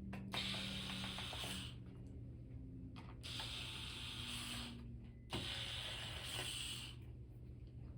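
Electric screwdriver running in three bursts of about a second and a half each, backing out the screws of a laptop's back cover.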